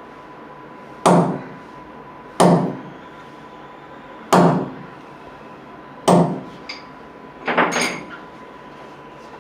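A hammer striking five times at uneven intervals, each a sharp knock that dies away quickly. The last blow is a quick double.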